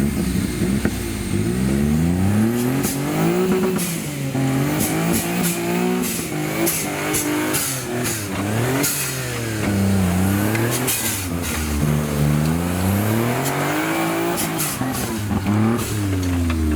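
Modified Suzuki Jimny off-road trial machine's engine revving up and down again and again, with sharp clicks and knocks scattered through it.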